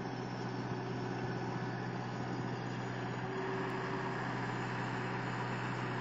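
27 hp engine of a tracked mini skid steer loader running steadily with a constant low hum while the machine works its backhoe attachment.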